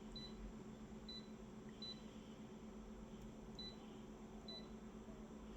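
Faint short high-pitched beeps, five of them at uneven gaps, over a low steady hum.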